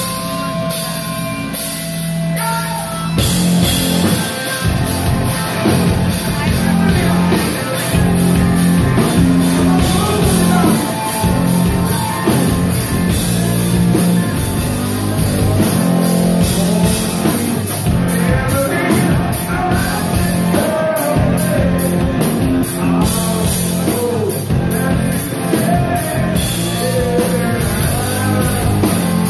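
Live hard rock band playing loud, with distorted electric guitars and a drum kit. A few seconds of held notes open it, then the drums and full band come in about three seconds in, with a lead singer's voice over the band later.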